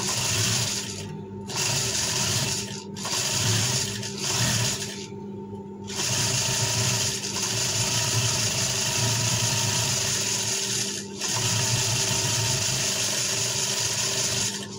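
Industrial sewing machine stitching in runs of a few seconds, stopping briefly four times as the fabric is turned, the longest stop about five seconds in.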